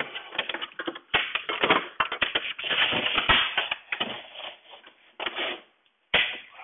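Irregular cracking, creaking and scraping of an old double-hung window's wooden and metal parts as they are pulled and worked loose by hand, with short pauses near the end and a last loud crack.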